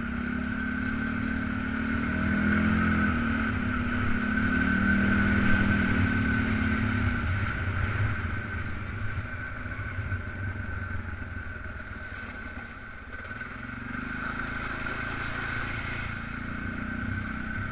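Polaris Sportsman 500 ATV's single-cylinder four-stroke engine running under way, its pitch rising and falling with the throttle, easing off about two-thirds of the way in and picking up again, with a steady high whine over it.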